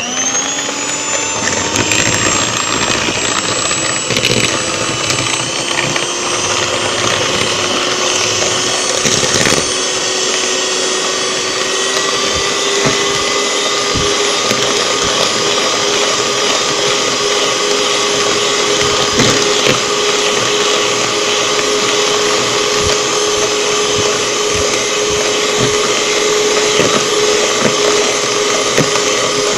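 Electric hand mixer starting up and beating egg yolks with sugar: a motor whine that rises in pitch over the first couple of seconds, then runs steadily, with occasional clicks.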